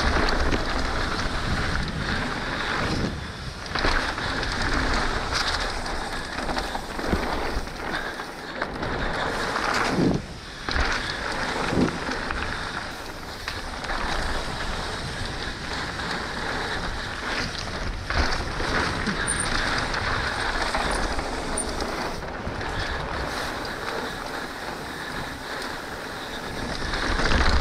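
Wind buffeting the action camera's microphone and a mountain bike's tyres rolling over a dirt trail during a fast descent, a steady rush that surges and dips unevenly.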